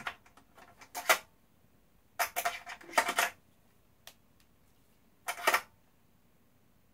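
Small screws being set by hand into the holes of an Xbox One's metal casing: a handful of short metallic clicks and rattles, about a second apart.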